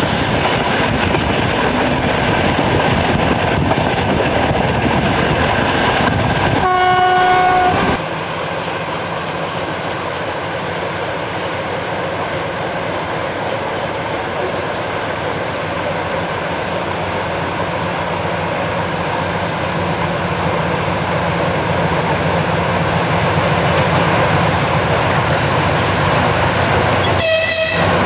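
Steady running noise of a diesel-hauled passenger train, heard from an open carriage window. A diesel locomotive horn sounds for about a second, about seven seconds in, and the noise then drops suddenly. Near the end a second short horn blast sounds.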